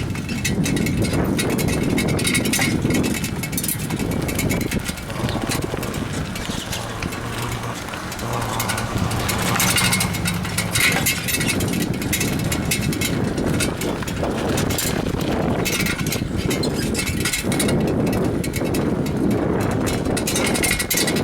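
Wind rushing over the microphone, with road noise, while riding a bicycle along a street. A low steady hum runs for a few seconds about a third of the way in.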